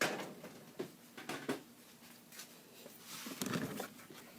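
Clicks and knocks of the plastic microwave control panel and its wire connectors being handled: a sharp knock at the start, a few clicks about a second in, and a rustling clatter near the end.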